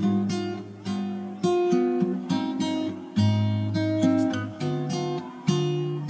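Background music on acoustic guitar: plucked and strummed chords, each note starting sharply and dying away.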